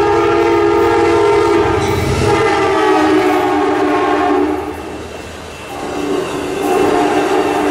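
Amtrak passenger train's air horn sounding a long blast as the train passes at speed. After a break of about a second it sounds again, over the rumble and wheel clatter of the passing cars.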